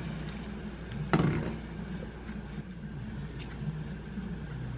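Gas stove burner burning under a pot of water, a steady low rumble, with one sharp knock about a second in.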